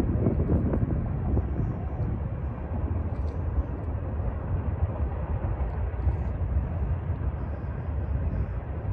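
Steady low rumble of a freight train rolling by at a distance, with no horn sounding.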